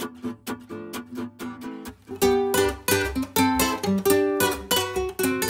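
Background guitar music: plucked notes and strummed chords, growing fuller and louder about two seconds in.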